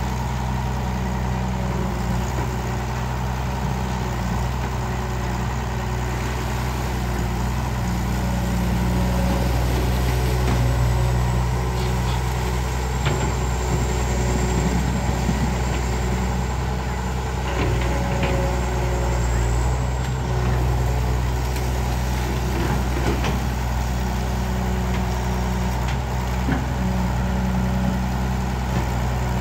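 Kobelco SK09 excavator's diesel engine running steadily while the machine digs, growing louder for a few seconds about a third of the way in. A few faint knocks come through in the second half.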